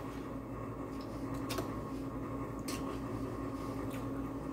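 A few light taps of a knife on a plastic cutting board while meatballs are trimmed, over a steady mechanical hum.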